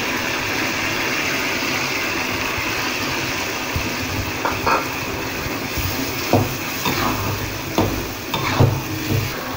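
Steady sizzling hiss from a steel wok of mushrooms, minced meat and sauce as frozen mixed vegetables go in. From about halfway, a metal spatula stirs the food and scrapes and knocks against the wok several times.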